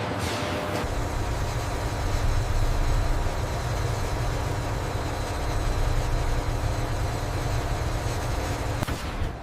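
Steady, loud rumble of running industrial machinery with a constant hum, with a short whoosh near the start and another near the end.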